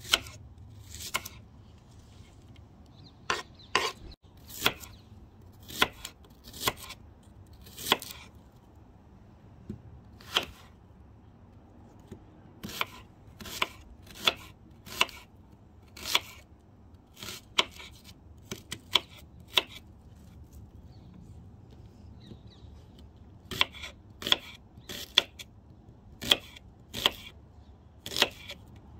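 Kitchen knife slicing an onion on a wooden cutting board: sharp knocks of the blade meeting the board, irregular and roughly one a second, with a pause of a few seconds in the later part.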